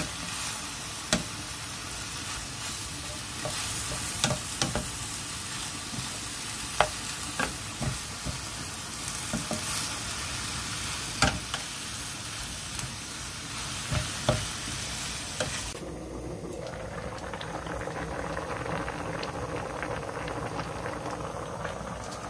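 Fish cakes and onions sizzling in a frying pan as they are stir-fried with a wooden spatula, the spatula knocking against the pan now and then. About 16 s in the sizzle gives way to the bubbling of a pot of braised pollock simmering.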